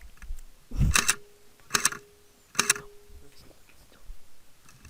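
Airsoft gun firing single shots: three sharp clacks about a second apart, and one more at the end. Each is followed by a brief ringing twang.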